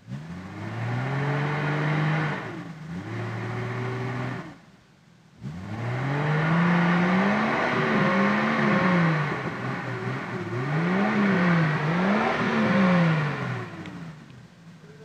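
Off-road 4x4's engine revving hard in mud, its pitch climbing and dropping back again and again. There is a short lull about four and a half seconds in, and then three quick rev peaks follow.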